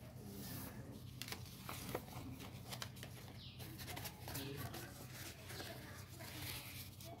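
A sheet of thin coloured paper being folded and handled: rustling and crinkling with short sharp clicks as it is creased and lifted, over a steady low hum.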